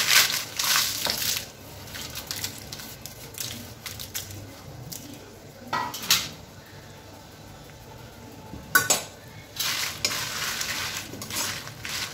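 Dried red chillies tipped from a steel plate into an aluminium kadai of oil, clattering and sizzling, followed by a steel ladle scraping and stirring them around the pan. The clatter comes in the first second or so, a single knock about six seconds in, and the stirring with a loud hiss from about nine seconds.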